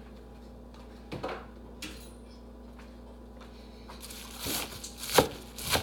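Knife chopping spinach on a cutting board: a couple of soft strokes, then quicker, sharper chops near the end.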